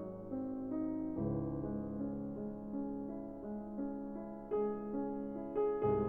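Background piano music: soft chords and melody notes, with fresh chords struck about a second in and again near the end.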